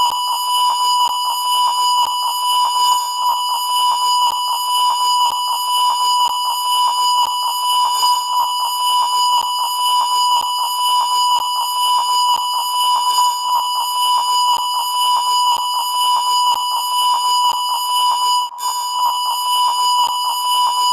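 Color bars test tone: a steady, unbroken 1 kHz reference beep that drops out briefly about 18 seconds in.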